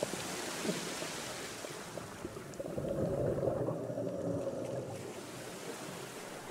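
Scuba diver breathing through a regulator underwater: a hissing inhale over the first two seconds, then a burble of exhaled bubbles from about two and a half seconds in, with faint clicks of the reef.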